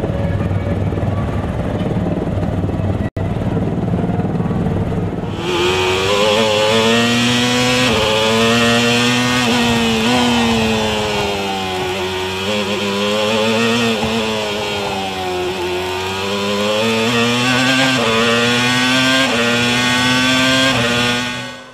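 A low rumble, then about five seconds in the onboard sound of a Jordan 197's Peugeot V10 Formula 1 engine at racing speed. Its high, buzzing note climbs through the gears, sinks twice as the car slows, then climbs again and cuts off suddenly near the end.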